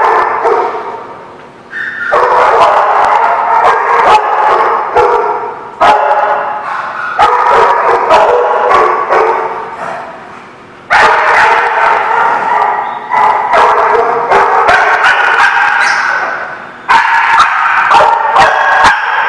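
Dogs barking and yipping over and over, the barks echoing in a hard-walled room. The din comes in loud spells that start suddenly and fade away, several times over.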